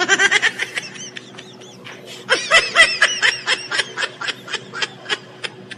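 High-pitched giggling laughter in two bouts: a quick burst at the start, then a longer run of rapid ha-ha pulses from about two seconds in that slows down and fades near the end.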